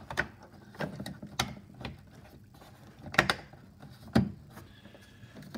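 Plastic interior door trim panel being pressed and clipped into the door: a string of short clicks, knocks and rubs of plastic on plastic, the loudest group about three seconds in.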